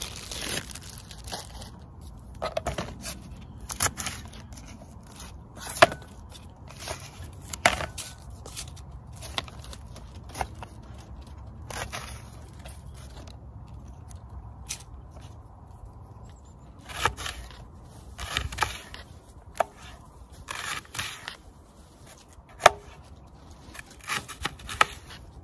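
Kitchen knife cutting and slicing a raw onion on a paper plate: irregular sharp taps of the blade through the onion onto the plate, with scraping. Plastic zip bag crinkling in the first couple of seconds as the onion comes out of it.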